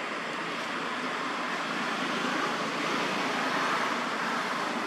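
Steady outdoor background noise: an even hiss with no distinct calls, knocks or voices.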